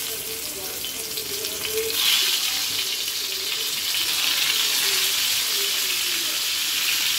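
Masala-coated fish pieces sizzling in hot oil on a tawa. The sizzle grows louder about two seconds in as another piece goes into the oil, then holds steady.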